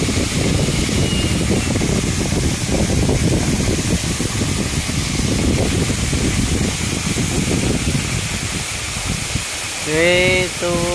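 Waterfall pouring onto rocks: a loud, steady rush of falling water and spray. About ten seconds in, a person's voice calls out briefly.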